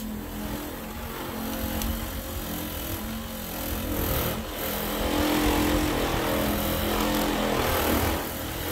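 Cheap corded Harbor Freight orbital buffer running with a foam pad on a riding mower's painted hood: a steady, fairly quiet electric motor hum that swells louder for a few seconds in the middle.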